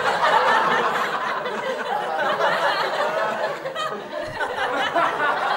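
Canned sitcom laugh track: a studio audience laughing together, easing off near the end.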